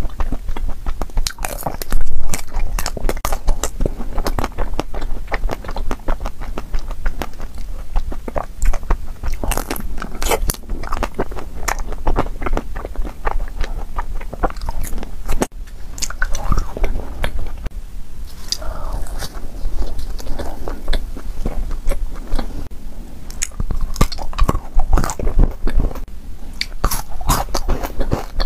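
Close-miked eating of chocolate-coated ice cream and crunchy nut-covered chocolate treats: many crisp bites and crunches, with chewing between them.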